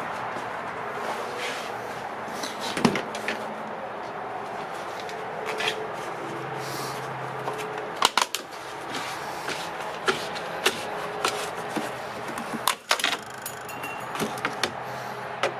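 Plastic door-sill trim being pried up off its clips: scattered sharp clicks, snaps and knocks, the loudest about 3, 8 and 13 seconds in, over a steady hiss.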